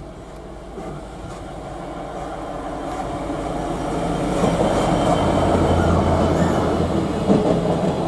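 Class 66 diesel-electric locomotive's two-stroke EMD V12 engine hauling a container freight train past: a low, steady engine drone that grows louder as the locomotive approaches and passes close by, with the rumble of the container wagons rolling along behind it near the end.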